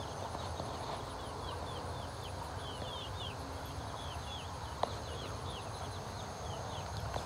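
Young chickens peeping: a steady run of short, high, falling chirps, several a second, over a low rumble, with a single sharp click a little before five seconds in.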